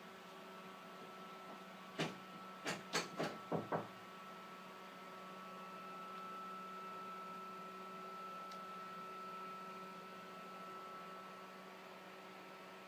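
Steady electrical hum while a ceiling fan is switched off to spin down, with a quick run of five clicks about two to four seconds in.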